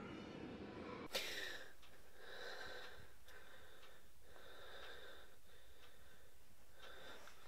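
A sudden sharp hit about a second in, then a person breathing with a faint hiss, short breaths coming roughly once a second.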